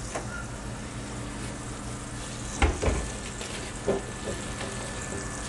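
Flounder fillets sizzling steadily in olive oil and butter in a hot skillet. A sharp knock comes about two and a half seconds in, and a lighter one about a second later.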